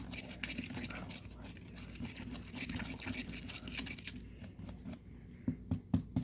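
A stir stick scraping and clicking against the sides of a mixing cup as two-part epoxy resin is stirred, with a few louder soft knocks near the end.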